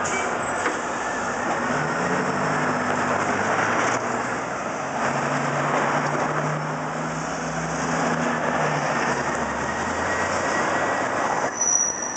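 Heavy vehicles passing close in city traffic: the engine and tyre noise of a tow truck hauling a fire engine, with taxis going by. A high, steady squeal starts near the end.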